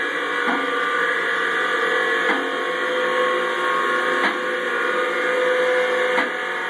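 A two-post vehicle lift's electric hydraulic pump motor runs steadily as the lift raises a Ford Bronco, letting its suspension hang down. A sharp click comes about every two seconds over the hum.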